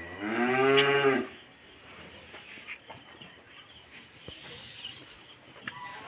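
A dairy cow mooing once, a single low call of about a second that drops in pitch as it ends.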